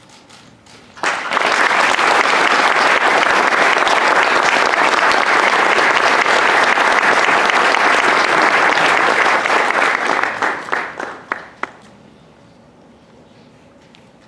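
Audience applauding: the applause starts suddenly about a second in, holds steady, then dies away into a few last scattered claps.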